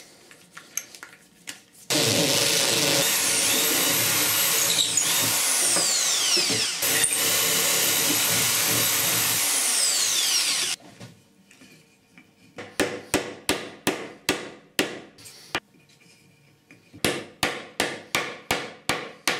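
Corded electric drill boring down into a wooden block: it runs at full speed for about nine seconds, its whine sliding down and back up in pitch as the bit loads and frees, then stops suddenly. A few seconds later a hammer taps on the block in two runs of quick blows, about three a second, driving a metal nut into the drilled hole.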